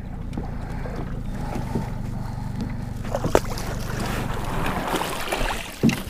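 Small boat's outboard motor idling low while the boat drifts up to a floating goose, with water noise. There is a sharp knock about three seconds in and another just before the end.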